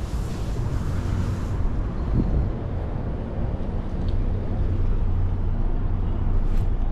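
Outdoor ambience: a steady low rumble, with a brief hiss over the first second and a half.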